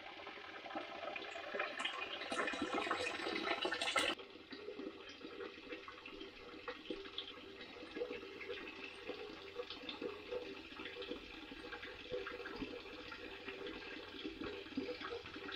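Water running and splashing, louder for about the first four seconds, then dropping suddenly to a steadier, quieter flow.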